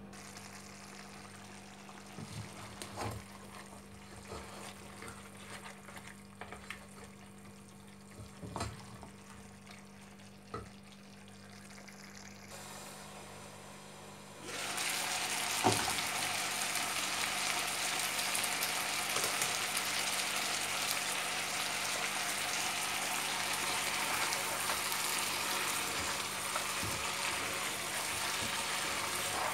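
A few light knocks over a low steady hum, then about halfway through a glass pot lid comes off and loud sizzling of meat frying in the pot starts, with a knock just after, and a wooden spoon stirs the meat through the sizzle.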